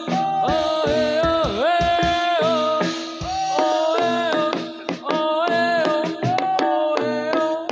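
Live Javanese jathilan music over a sound system: drum strokes and held, steady tones under a sliding, ornamented melodic lead line.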